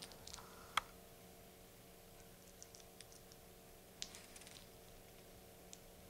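Near silence: room tone with a steady faint hum and a few faint clicks and rustles of handling. The sharpest click comes about a second in, another about four seconds in.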